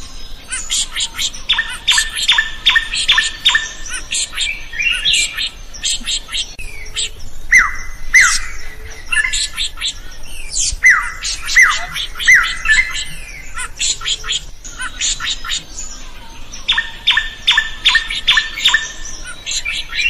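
Drongo singing vigorously, a busy run of sharp chips, rapid trains of repeated notes, and a few falling whistled notes.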